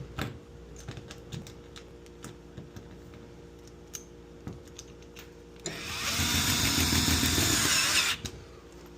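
Scattered light clicks and knocks of hands working the hose over a steady hum, then, about six seconds in, a power drill runs for about two and a half seconds, likely fastening the re-routed condensate drain hose in place.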